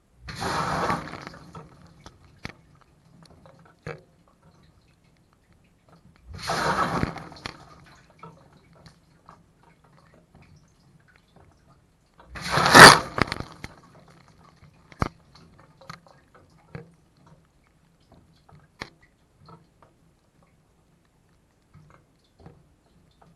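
Dishwasher spray jets washing over the camera's plastic bag three times, about six seconds apart, the third the loudest, with small drips and clicks between them and a faint low pump hum underneath.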